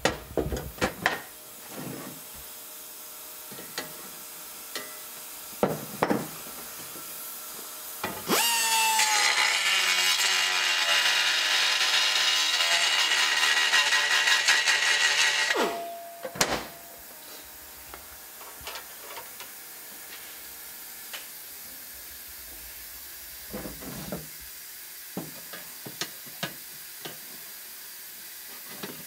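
Handheld power tool worked on sheet metal for about seven seconds: a loud hiss with a whine that drops in pitch, then a sudden stop. Before and after, scattered clicks and knocks of metal parts and tools being handled.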